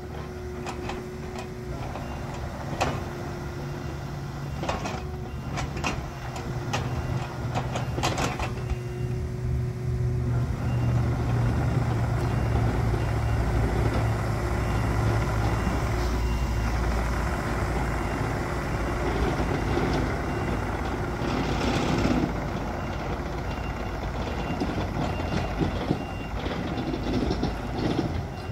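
2016 Takeuchi TB260 mini excavator's 2.0 L four-cylinder turbo diesel running under hydraulic load, with a few sharp metal knocks in the first eight seconds or so. From about ten seconds in the engine gets louder and a travel alarm beeps steadily at an even pace as the machine moves.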